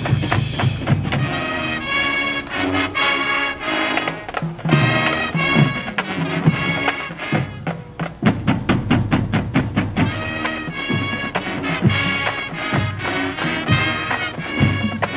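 High school marching band playing its field show: brass chords over drums, with a stretch of fast, evenly repeated notes in the middle.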